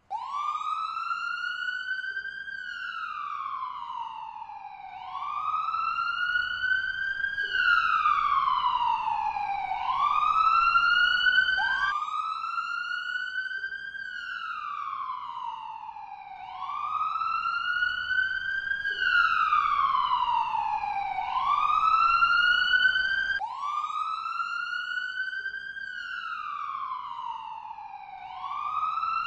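Ambulance siren wailing, its pitch sliding slowly up and down in cycles of about five seconds. The wail breaks off and restarts abruptly twice, as a looped recording does.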